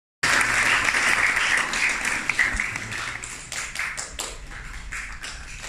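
Audience applauding: dense clapping at first that thins after about three seconds into scattered single claps and fades away.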